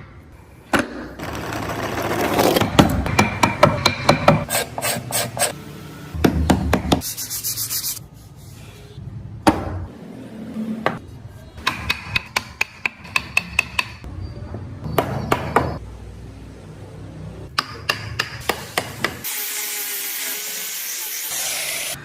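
Wood being worked with hand tools: runs of quick, sharp taps alternating with stretches of scraping and rasping, in short segments that start and stop abruptly. A steady high hiss fills the last few seconds.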